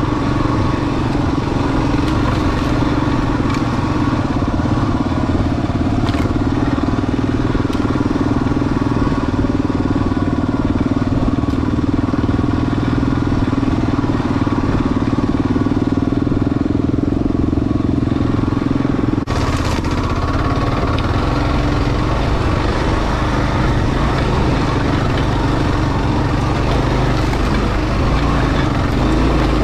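Kawasaki KLR 650 single-cylinder four-stroke engine running steadily under way on a rough trail, heard from on the bike. About two-thirds of the way through, the sound drops out for an instant and then carries on with a changed tone.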